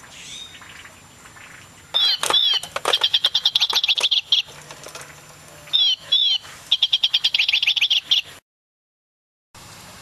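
Toy singing bird in a cage chirping its recorded birdsong twice. Each round opens with two swooping whistles and runs into a rapid trill of chirps about a second and a half long. The sound cuts to dead silence near the end.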